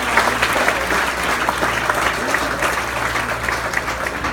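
Audience applauding, dense clapping that eases off slightly over the few seconds.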